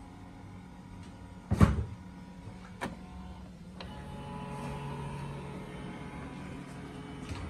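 Canon Pixma G3420's scanner at work: a loud thump and a click, then from about four seconds in the scan motor runs with a steady hum as the scan head travels under the glass, ending in a couple of knocks.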